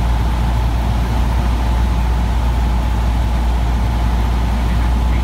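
Cessna 150's four-cylinder Continental O-200 engine and propeller running steadily in cruise flight, heard from inside the cockpit as a constant low drone.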